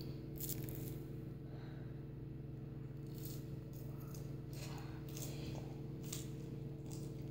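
A person chewing a bite of toasted waffle: a few faint, short crunchy crackles spread through, over a steady low electrical hum.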